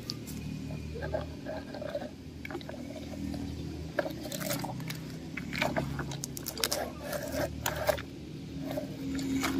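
Plastic toy truck's wheels rolling over dry dirt and small stones: scattered crunches and clicks over a low rumble.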